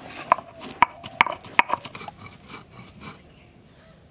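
Stone roller crushing whole black peppercorns and salt on a flat grinding stone (shil-nora): a quick run of about seven sharp cracks and knocks in the first two seconds, then softer rolling and scraping of stone on stone.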